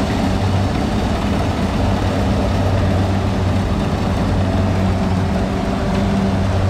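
Kubota DC-series rice combine harvester running steadily as it cuts and threshes rice, a loud, even engine hum.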